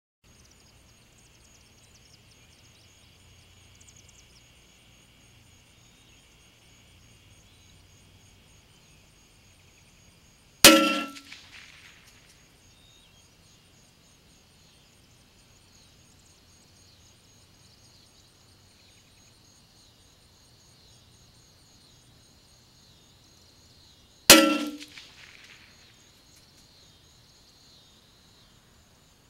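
Two shots from a Savage Mark II FVSR bolt-action .22 LR rifle, about 13 seconds apart, each a sharp report that rings on and fades over a second or so.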